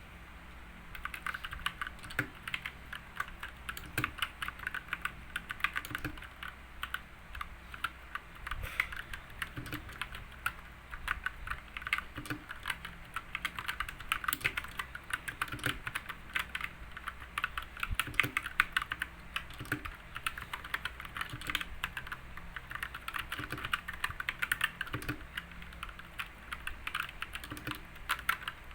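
Computer keyboard being typed on one-handed in a sound test: rapid, irregular key clicks with soft lower thuds as keys bottom out, starting about a second in.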